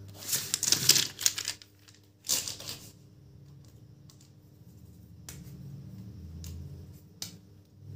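Plastic felt-tip sketch pens clattering together as they are gathered up off a table, in two bursts, followed by a few separate sharp clicks.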